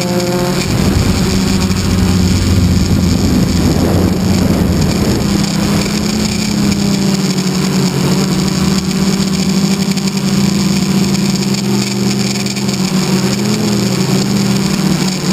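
RC model airplane's motor and propeller heard from a camera mounted on the plane, running at a steady pitch with wind rush over it, the pitch wavering slightly near the end.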